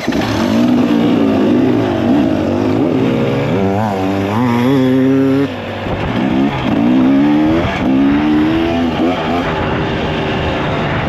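2024 KTM 300XC two-stroke single-cylinder dirt bike engine revving as the bike pulls away and rides a dirt trail. The revs rise and fall with the throttle, climbing steadily about four to five seconds in before dropping off sharply.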